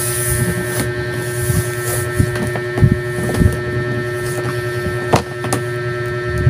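A steady electrical hum made of several fixed tones over a low drone, broken by a few short clicks and knocks, the sharpest about three seconds in and another about five seconds in.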